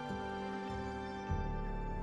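Slow, soft background music of held notes, with a new, deeper chord coming in just past a second in.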